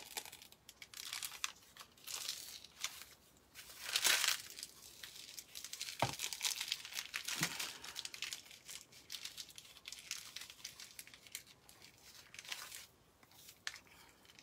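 Disposable plastic piping bag crinkling and rustling as it is squeezed out and handled, in irregular bursts, the loudest about four seconds in, with one sharp tap near the middle.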